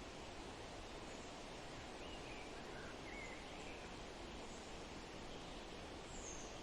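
Steady outdoor nature ambience, an even background hiss, with a few faint, short bird chirps about two to three seconds in and one higher chirp near the end.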